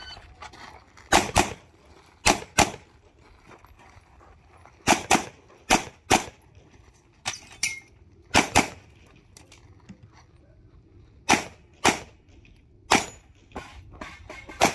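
Semi-automatic pistol shots from a practical-shooting stage: about fourteen sharp reports, mostly fired in quick pairs (double taps), with pauses of a second or two between strings as the shooter moves between positions.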